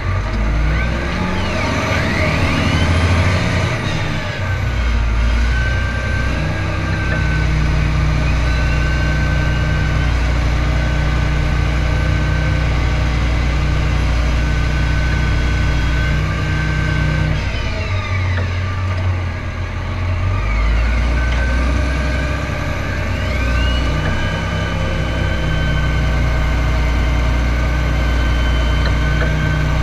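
John Deere tractor's diesel engine running steadily under way across snow, with its note shifting several times and a whine that sweeps up and down twice.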